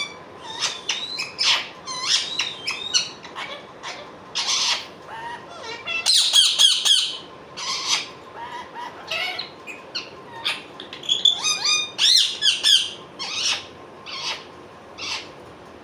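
Indian ringneck parrot calling in a fast string of short squawks and whistle-like chirps that glide up and down in pitch. Two louder, harsher calls come about six and twelve seconds in.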